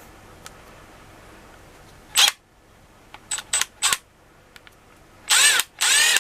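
Milwaukee M12 FUEL brushless impact driver spinning freely on short trigger pulls, with no load. Each burst whirs up and winds down: one about two seconds in, three quick blips a second later, and two longer runs near the end.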